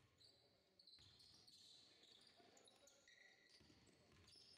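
Faint basketball gym sounds: sneakers squeaking on the court floor with short high squeals, and the ball bouncing with a few sharp knocks.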